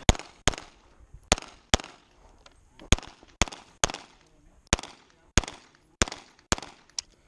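Semi-automatic pistol fired in quick pairs: about a dozen sharp shots, most of them double taps about half a second apart, with short pauses between the pairs.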